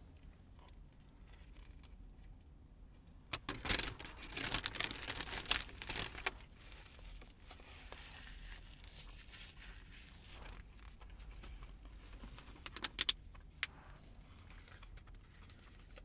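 Packaging being handled: a crinkling, rustling burst lasting about three seconds a few seconds in, then a brief cluster of sharp crackles about two-thirds of the way through.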